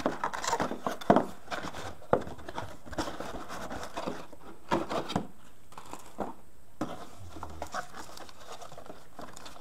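Cardboard box and its packaging handled by hand: rustling and crinkling as the contents are taken out, with irregular taps and knocks of cardboard, the loudest about a second in. The handling is busiest in the first half and thins out later.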